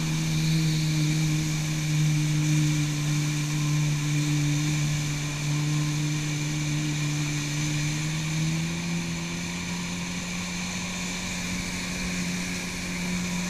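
Jet ski engine running steadily at speed while towing an inflatable tube, a constant hum over the hiss of rushing water from the wake. The engine note rises slightly about two-thirds of the way through.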